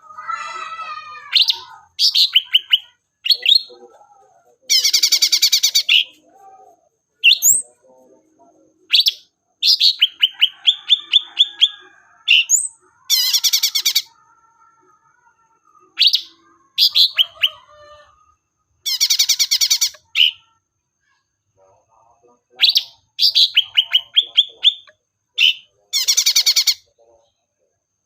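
Green leafbird (cucak ijo) singing: repeated loud bursts of fast, high trilled notes, each a second or two long, with short pauses between. It is the kind of song used to lure other cucak ijo and provoke lazy singers into singing.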